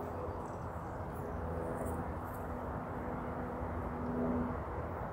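Outdoor ambience: a steady low rumble of distant traffic, with a faint held drone that stops about four and a half seconds in.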